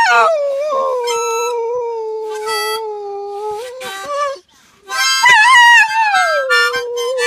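A dog howling along to a harmonica. There are two long howls, each starting high, sliding down and then holding a lower note, with a short break between them about four seconds in. Short harmonica chords sound over the howls.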